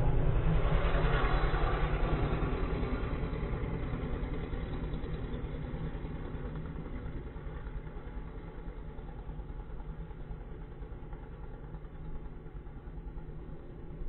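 A low engine rumble with a fine rapid pulse, loudest at the start and slowly fading.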